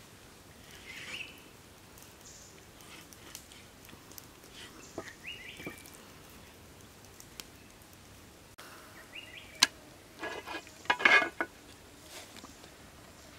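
Knife slicing raw beef on a wooden chopping board gives faint small knocks and scrapes over quiet ambience, with a few short chirps. Near the end comes a sharp click and then a brief, louder clatter with a short ringing, from dishes being handled.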